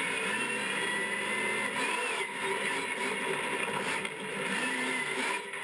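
Monster truck engine running, heard from inside the cab, its pitch rising and falling gently a few times.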